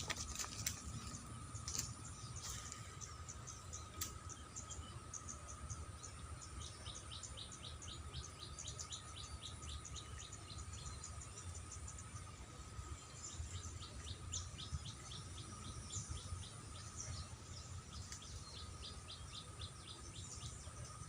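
Swamp ambience: insects droning in a steady high tone while a bird calls in quick runs of short chirps, about four a second, with a low rumble underneath.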